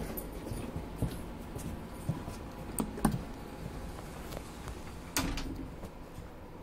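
A few light clicks and knocks over a low steady hum: one about a second in, two close together near three seconds, and a longer, louder one past five seconds.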